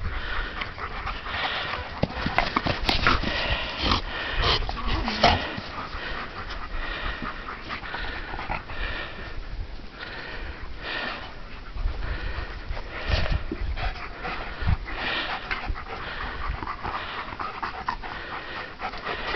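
Two Alaskan malamutes at play with a ball: dog breathing and snuffling mixed with many short, irregular knocks and scuffles.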